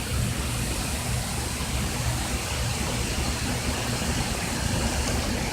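Heavy rain falling steadily: a constant hiss with a low rumble underneath.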